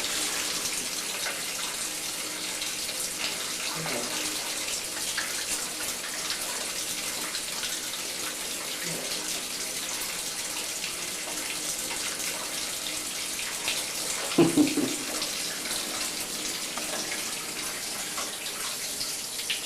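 Water running steadily from a tap. A brief voice cuts in about two thirds of the way through.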